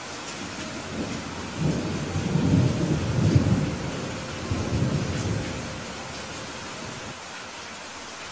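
Steady rain hiss with a low rumble of thunder that rolls in about a second and a half in, swells, and dies away after about six seconds.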